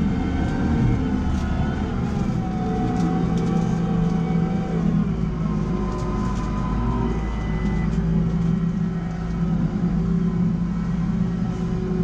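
JCB Fastrac 4220 tractor's diesel engine running steadily under ploughing load, with the revs easing down slightly about four seconds in. The tractor's auto mode is adjusting the revs to hold a set ground speed.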